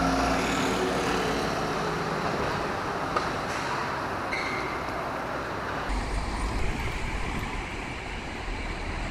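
Street traffic: a double-decker bus's engine running as it passes close by at the start, easing off into steady roadway noise.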